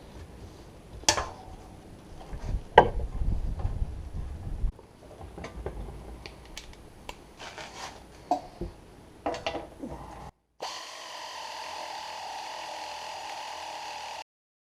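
Scattered metal clanks and knocks of hand work on a tractor seat's steel parts. After a brief break, a power tool runs steadily for about four seconds and stops abruptly.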